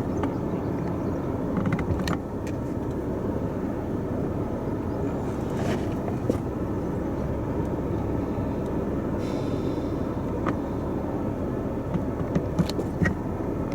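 Steady road and engine noise inside a moving car's cabin, with a few faint clicks and knocks.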